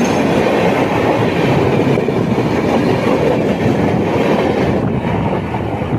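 Passenger train running on the rails, heard from aboard: a steady, loud rumble of wheels and carriage.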